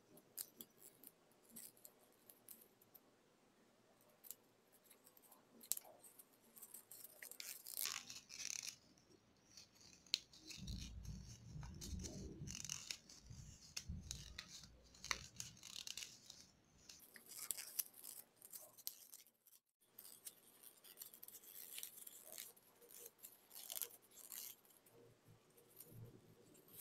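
Faint rustling and crinkling of red origami paper being folded and pressed between the fingers, with soft scattered clicks. A low rumble runs for a few seconds midway.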